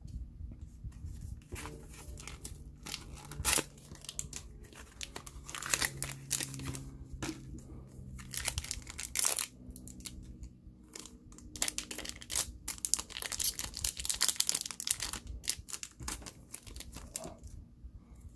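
Bakugan trading-card booster pack wrapper being handled and torn open, with irregular crinkling and tearing; the crinkling is densest near the end.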